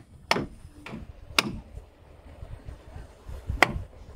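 Hammer striking a caulking iron, driving oakum into a wooden deck seam: four sharp knocks, three in quick succession and then one more after a pause of about two seconds.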